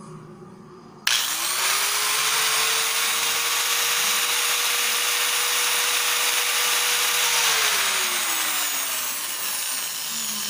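Electric hand grinder switched on about a second in. Its brushed motor spins up quickly to a steady high whine with a loud hiss, runs for about six seconds, then is switched off and winds down with falling pitch. This is the faulty grinder, still unrepaired, whose commutator sparks heavily.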